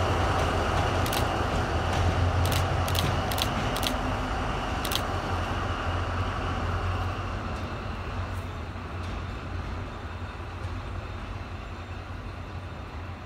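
D10H (Dongfanghong 21) diesel-hydraulic locomotive running with a steady low drone as it pulls away, slowly fading. About six sharp clicks come in the first five seconds.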